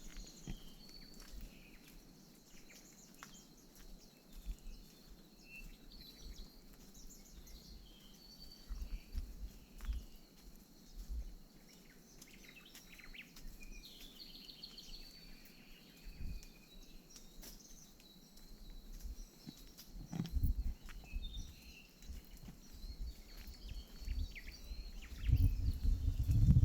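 Outdoor forest ambience: scattered short bird chirps over an irregular low rumble and bumping on the microphone, the rumble growing much louder near the end.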